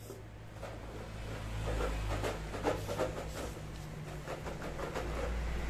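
Rolled paper lottery slips rattling inside a clear plastic jar as it is shaken, a dense irregular clatter that grows louder about a second and a half in.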